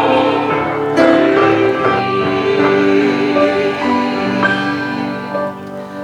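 Instrumental worship music with sustained chords, the close of a song after the singing stops, growing quieter near the end.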